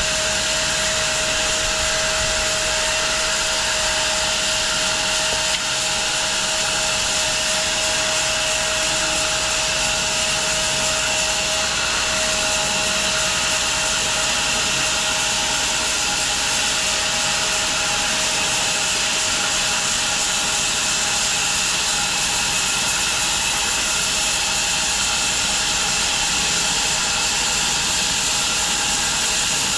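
Large home-built bandsaw mill running steadily, a constant whir with a held tone, as it works through a walnut log.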